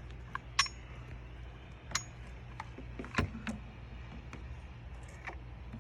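Scattered sharp clicks and taps of the keyless door lock's inside housing being handled and fitted against the RV door, over a steady low hum.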